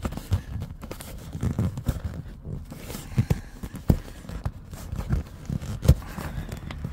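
Hand handling noise at a car's rear seat cushion: fingers rubbing and pressing against the seat and floor mat, with irregular soft knocks. The sharpest knock comes near the end.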